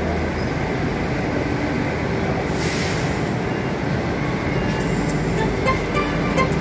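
Delhi Metro train running, a steady loud rumble with a low electric hum. A brief hiss comes about two and a half seconds in, and a few sharp clicks near the end.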